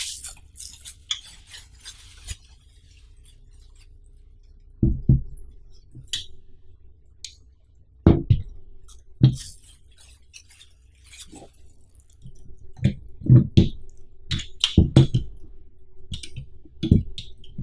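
Plastic wrapping crinkling as it is pulled off a folded black metal tripod banner stand, then the stand's metal legs clinking and knocking against the desk as it is handled. The knocks come singly at first and then in a quick run near the end.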